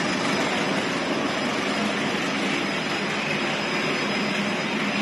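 Pet-food production-line machinery running: a steady, even noise of electric motors and conveyors, with a thin high steady tone above it.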